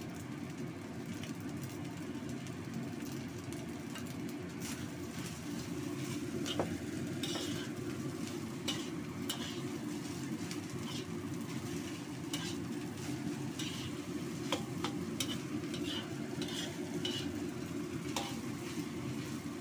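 Metal spatula scraping and turning fried rice in a black wok, with the rice sizzling. Irregular scrapes and clicks of metal on the pan, more frequent after the first few seconds, over a steady low background noise.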